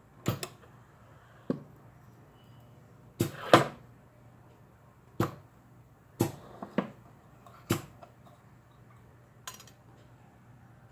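Sharp clacks, about ten at irregular intervals with the loudest near the middle, from a bench-top pneumatic press binding fishing hooks to wire, over a steady low machine hum.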